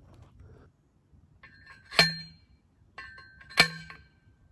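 Yellow non-spring-loaded manual post driver slammed down onto a steel T-post twice, about a second and a half apart. Each strike is a sharp metallic clang that rings on briefly.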